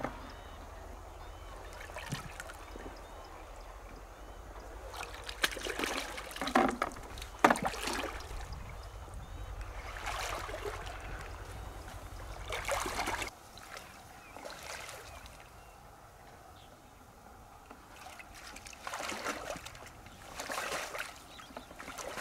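Shallow river water sloshing and splashing in short, irregular bursts as hands grope through the mud and water for freshwater mussels.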